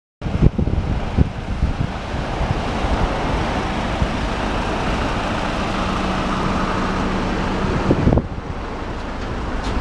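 Outdoor wind buffeting a handheld camera's microphone as a low, uneven rumble, with a couple of knocks in the first second or so and another about eight seconds in. A faint steady low hum runs through the middle.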